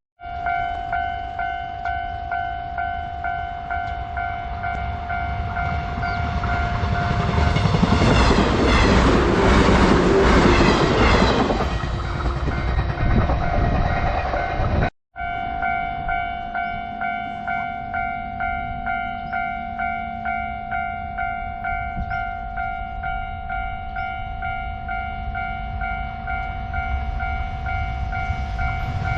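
Japanese level-crossing alarm ringing its steady two-tone clang about twice a second while a train runs over the crossing, the passing train loudest about eight to twelve seconds in. The sound drops out for a moment about halfway through, then the crossing alarm carries on over a low rumble of rail traffic.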